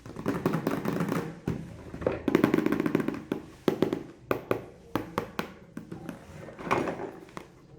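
Plastic toy packaging and toy pieces being handled: rustling and crinkling with an irregular string of sharp clicks and taps.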